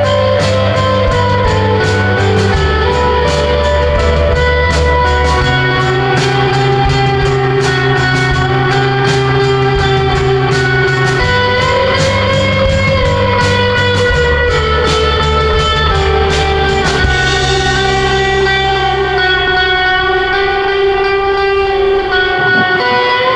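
Background music: guitar-led instrumental rock with a steady beat and bass line, the beat dropping out about three quarters of the way through, leaving sustained guitar notes.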